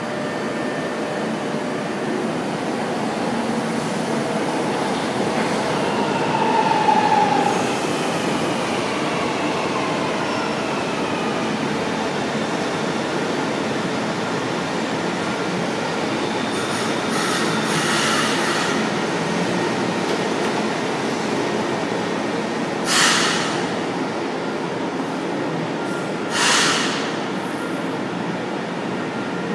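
Stainless-steel São Paulo Metro Line 1 train running along the platform and slowing: steady rumble of wheels and motors, with a whine falling in pitch as it slows and a brief squeal about seven seconds in. Near the end come two short bursts of air hiss about three and a half seconds apart.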